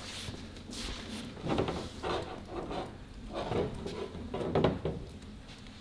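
Workshop handling noises: a few irregular soft knocks and rubs as hands work trim and tape along the car's fiberglass front fender.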